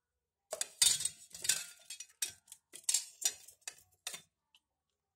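Chopped onion being tipped into a stainless steel mixing bowl: an irregular run of about ten sharp clinks and scrapes against the steel, stopping a little after four seconds in.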